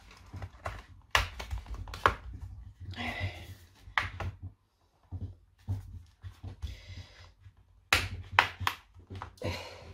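Plastic pry pick worked along the seam of a Samsung Galaxy Book's aluminium bottom cover: a string of sharp clicks and snaps as the cover's clips pop loose, with scraping of the pick and hands on the case between them; a tight cluster of snaps comes near the end.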